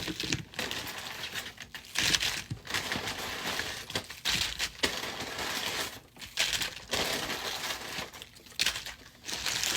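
Paper takeout bag and food wrappers rustling and crinkling in irregular stretches as the order and a pile of sauce packets are unpacked.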